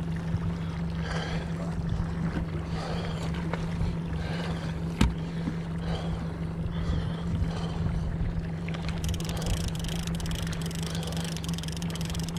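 Mercury outboard motor running at trolling speed with a steady hum, over water noise from the moving boat. There is one sharp click about five seconds in, and rapid fine ticking over the last few seconds as the baitcasting line-counter reel is cranked.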